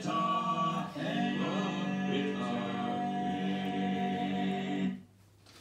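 Music with singing voices holding long notes, cutting off abruptly about five seconds in.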